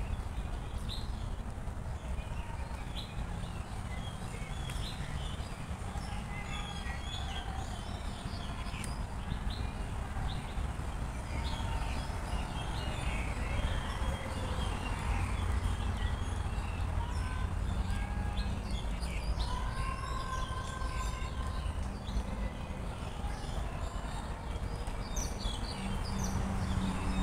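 Small birds chirping and whistling in short calls throughout, over a steady low rumble of distant traffic.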